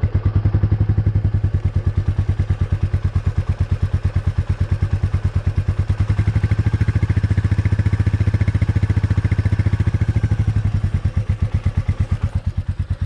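Royal Enfield Meteor 350's single-cylinder engine idling on its stand with a steady, even pulse. No rear brake or chain squeak is noticeable to the owner, who says it went away once the rear was oiled and the chain tightened.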